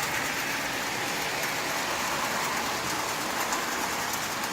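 Marx Commodore Vanderbilt toy locomotive, driven by a 666 double-reduction motor, running steadily around the track while pulling a long train of tin litho cars. The motor and the wheels on the tinplate rails make a steady whirring clatter.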